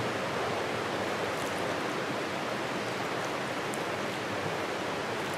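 Steady rush of a flowing creek.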